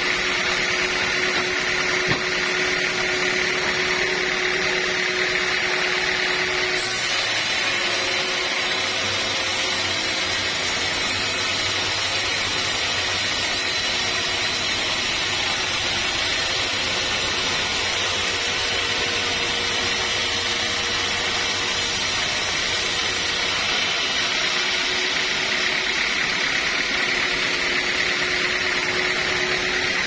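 Sawmill band saw running steadily as its blade rips a large teak log lengthwise. From about a quarter of the way in until near the end, the sound fills out with a deeper hum and more hiss.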